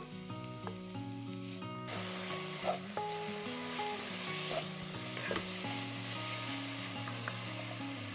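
Diced onions frying in a cast-iron pot, the sizzle starting suddenly about two seconds in, with a wooden spoon stirring and scraping them a few times. Soft acoustic guitar music plays underneath.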